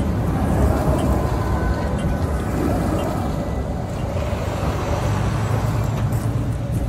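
Electric tram running past close by and pulling away along its rails: a steady low rumble with a faint steady whine above it.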